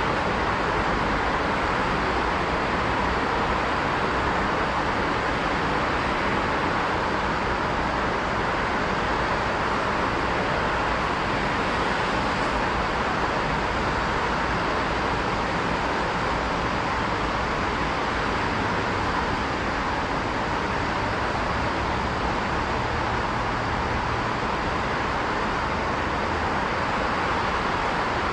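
Steady roar of road traffic, an unbroken wash of noise with no single vehicle or train standing out.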